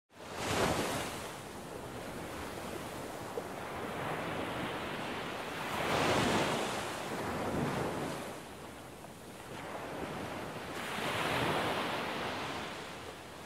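Ocean waves washing in and out: a steady rush of surf that swells three times, about five seconds apart.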